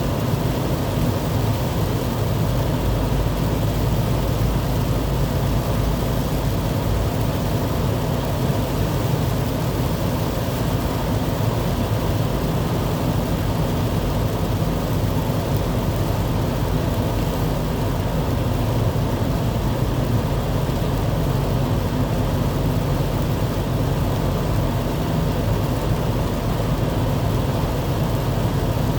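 Steady low rumble and hiss of a running vehicle, with a constant low hum that does not change.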